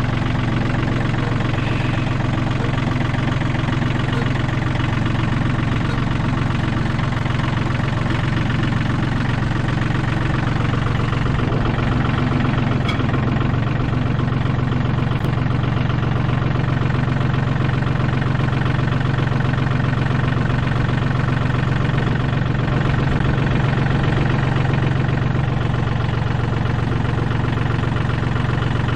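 Compact loader tractor's diesel engine running steadily at an even speed, a constant low drone heard close up from the operator's seat.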